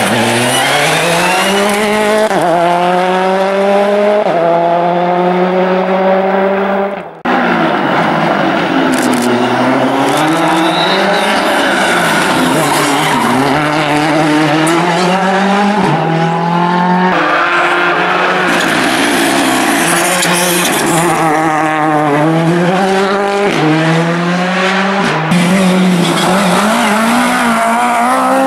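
A series of rally cars at full throttle out of corners, one after another. Each engine revs up with rising pitch and drops sharply at each upshift.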